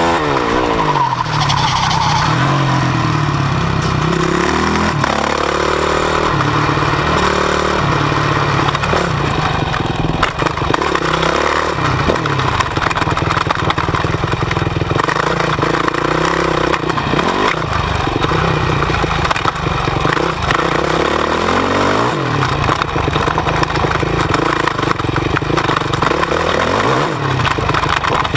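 Yamaha YZ450's single-cylinder four-stroke engine heard up close from the bike itself, revving up and dropping off again and again as the rider accelerates and backs off, with a sharp fall in pitch right at the start.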